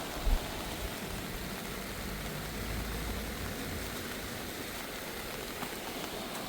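Steady rush of a river in flood after heavy rain. A short low thump comes just after the start, and a low rumble swells around three seconds in.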